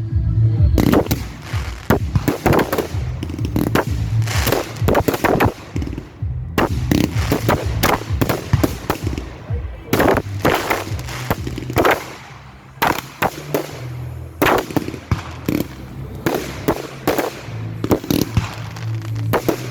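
Display fireworks going off in rapid succession: many sharp bangs and crackling bursts, with short lulls about six and twelve seconds in.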